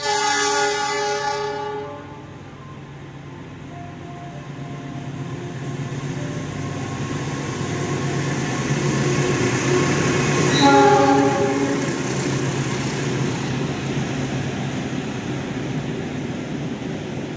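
CC 206 diesel-electric locomotive sounding its horn for about two seconds as it approaches, then the train running through the station non-stop, its noise building as the locomotive and coaches pass. A second, shorter horn blast comes about ten seconds in.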